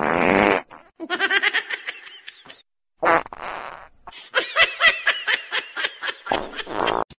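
Three short fart sounds, the first two each followed by a burst of a person's laughter.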